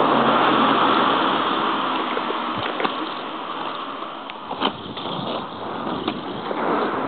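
Wind rushing over the microphone and skate wheels rolling on asphalt during a fast downhill skate. The rushing is loudest at first, eases off mid-way, then builds again near the end, with a few sharp clicks in between.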